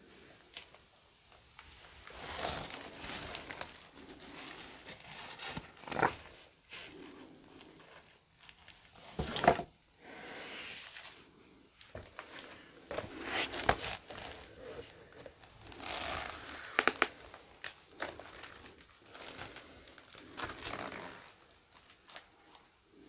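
Irregular bursts of rustling, crinkling and scraping, each lasting about a second, with a few sharp clicks among them.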